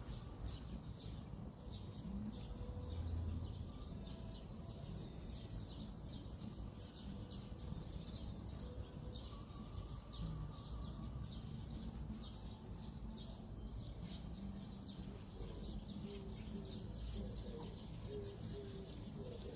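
Faint outdoor background with small birds chirping again and again over a low steady rumble.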